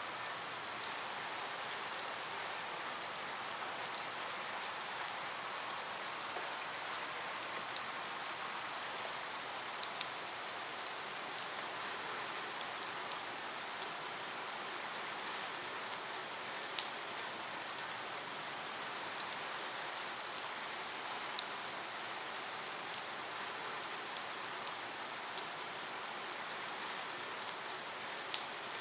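Steady rain falling, an even hiss with many sharp individual drop ticks scattered throughout.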